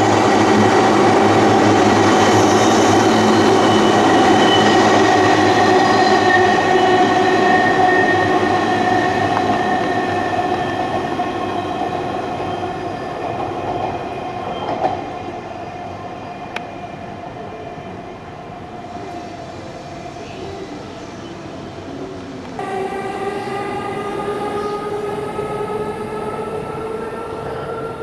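A 185-series electric train running through a station at speed: loud running noise with a steady motor hum whose tones slowly fall in pitch as it fades. About two-thirds of the way in, the train sound jumps louder again, with tones slowly rising.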